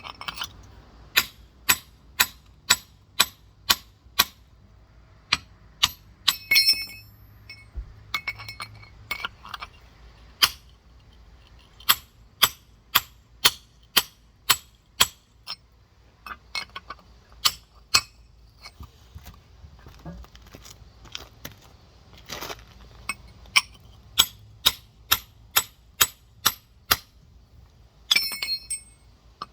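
Rock hammer striking a giant geode: runs of sharp metallic taps, about one and a half a second, broken by pauses, with a brief clattering burst twice.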